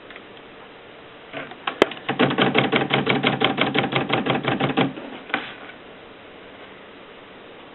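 Mercedes Selekta typewriter working: a sharp single stroke, then a rapid, even run of strokes at about ten a second for nearly three seconds with a hum under it, and one more stroke after.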